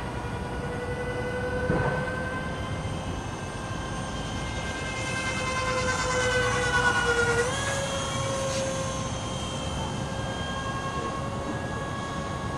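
Electric ducted-fan whine from a GWS RC F-15 model jet in flight: a steady pitched whine that grows louder as the jet passes closest. The pitch sags, then steps back up about seven and a half seconds in. A short burst of noise comes about two seconds in.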